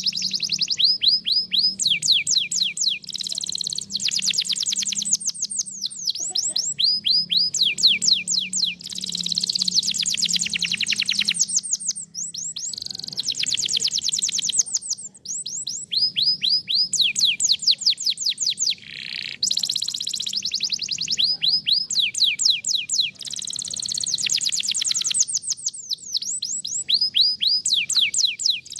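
Domestic canary singing: phrase after phrase of rapid trills, each a quick run of whistled notes sweeping downward in pitch, with short pauses between phrases. This is canary song used as a trigger (pancingan) to get a reluctant canary to sing.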